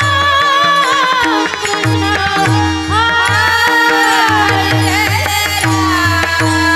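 Marathi kirtan devotional song: a woman sings a wavering melodic line over regular pakhawaj drum strokes, clashing hand cymbals (tal) and a steady held drone tone.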